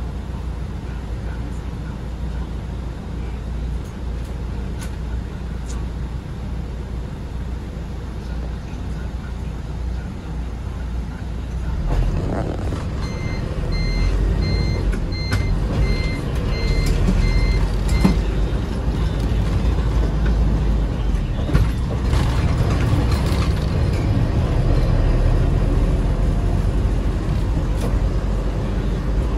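Toyota Coaster minibus's diesel engine running steadily, getting louder about twelve seconds in. Partway through, a string of about eight short, evenly spaced beeps sounds for about five seconds.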